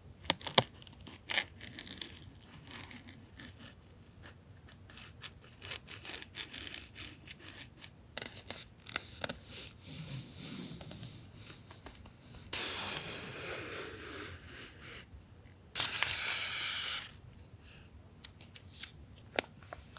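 Washi and masking tape rolls and paper being handled: light taps and rustles, then two longer tearing sounds, the second and louder one about three-quarters of the way through.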